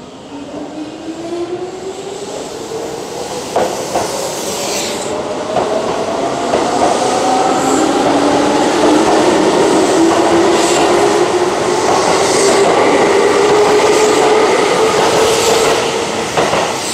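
Keihan 1000-series electric train pulling away and passing close by: the traction motor whine rises steadily in pitch as it accelerates, with wheels clicking over rail joints. It grows louder as the cars go past and fades near the end.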